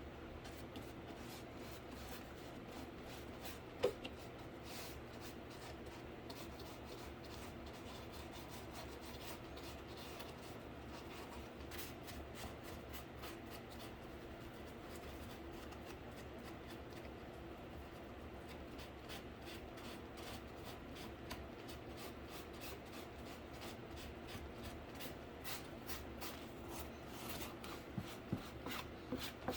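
Faint, repeated scratchy strokes of paint being worked onto a cardboard PC case by hand. A single sharp click comes about four seconds in, and a few light knocks near the end.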